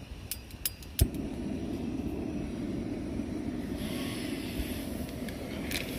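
Canister gas camping stove being lit: a few sharp clicks, then about a second in the burner catches with a pop and keeps burning with a steady low rush of gas flame.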